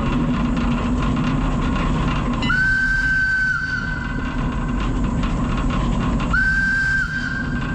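Two blasts on the steam whistle of the 1890 Cockerill steam tram Lucie No. 8, the first about a second long and the second a little shorter, over the steady running noise of the tram moving along the rails.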